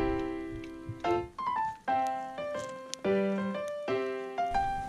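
Background music: chords struck about once a second, each ringing and fading.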